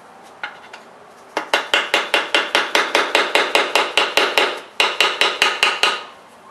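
A fast series of hammer taps on a metal bell housing, about five a second with a short break near the middle, each strike ringing briefly: knocking a bell housing that has been stuck for fifty years loose from the engine block.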